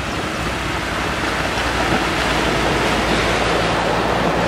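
Land Rover wading through deep muddy water: a steady rush of splashing water from its bow wave, with the engine's low hum underneath, growing a little louder in the second half.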